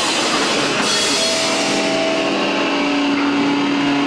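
Punk band playing live and loud: pounding drums and crashing cymbals under distorted electric guitar. A cymbal crash comes about a second in, then held guitar tones ring on steadily over the drums.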